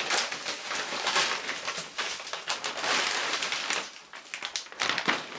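Plastic packaging and bubble wrap crinkling and rustling as a wrapped skateboard deck is pulled out of its parcel, with a few sharp crackles near the end.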